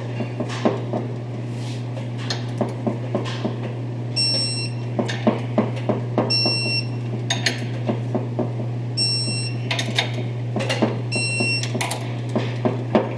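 Torque wrench ratcheting on differential ring gear bolts with rapid metallic clicks. Three times it gives a short high electronic beep, the signal that a bolt has reached the set torque of 101 ft-lb. A steady low hum runs underneath.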